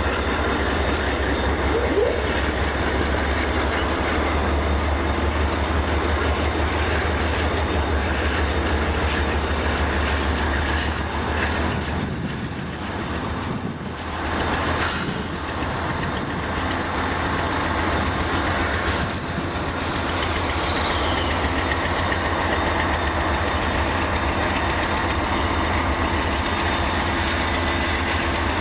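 Norfolk Southern coal train passing slowly: the steady low drone of its EMD SD40-2 and GE Dash 9-40CW diesel locomotives, with steel wheels clicking over the rails. The sound dips briefly about halfway through.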